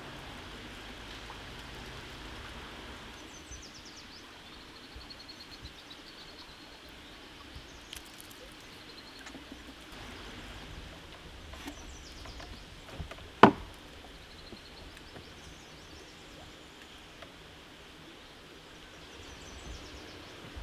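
Woodland ambience with a bird singing short phrases several times. A single sharp knock about halfway through is the loudest sound, with a few faint ticks and handling noises around it.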